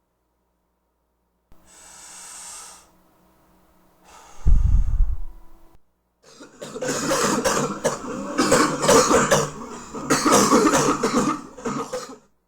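A person coughing: first a drawn breath, then a single loud cough with a heavy low thump. After that comes a long fit of rapid repeated coughs lasting about six seconds.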